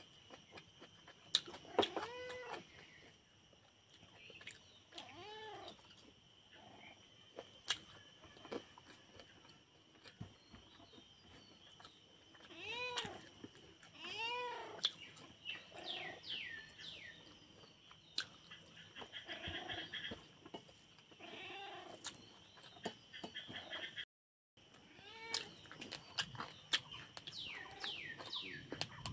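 A cat meowing repeatedly: a dozen or so separate meows, each rising and falling in pitch, with a few sharp clicks between them.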